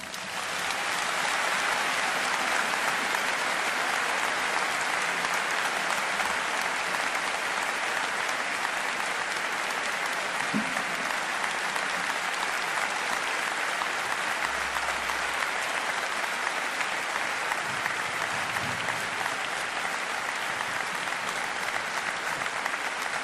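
Large concert-hall audience applauding steadily after an orchestral performance ends.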